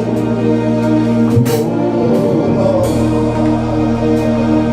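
Live gospel worship music between sung lines: long held chords over a steady low bass, with a few sharp hits about a second and a half apart.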